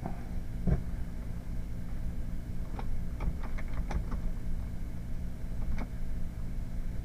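Computer keyboard keys clicking: a single click, then a quick run of about six keystrokes a few seconds in and one more near the end, over a steady low hum.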